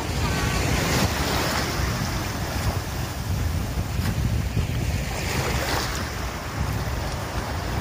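Wind buffeting the microphone over shallow surf washing and water splashing around legs and a cast net being dragged in. The wind gives a steady low rumble under the wash of the water.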